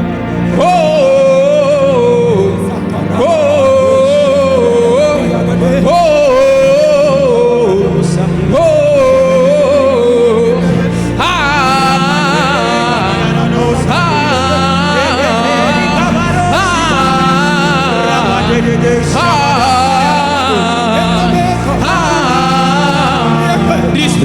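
Gospel worship song: a voice singing a wordless "eh eh eh" chant over steady accompaniment. About eleven seconds in, the singing climbs higher and grows brighter.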